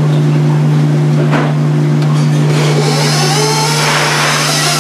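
KitchenAid bowl-lift stand mixer running steadily, a constant motor hum as its beater creams butter and sugar while egg yolks are added one at a time. A brighter hissing noise joins about three seconds in.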